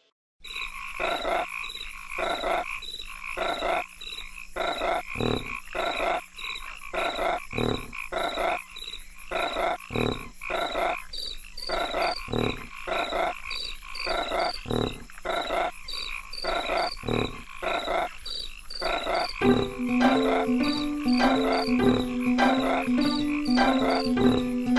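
A chorus of frogs croaking over insects chirping, many short calls repeating steadily. About twenty seconds in, a song's intro music with a repeating low melody comes in under the croaking.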